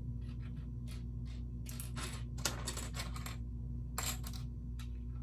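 Small plastic LEGO pieces clicking and rattling as they are handled and set down: irregular sharp clicks, in a cluster a couple of seconds in and again about four seconds in.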